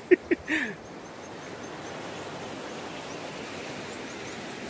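Steady rush of shallow river water flowing over rocks. It opens with a few short shouts from a man's voice, and faint high chirps repeat about four times a second through the first half.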